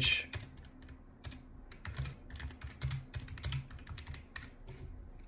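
Typing on a computer keyboard: a run of unevenly spaced keystroke clicks as a short phrase is typed.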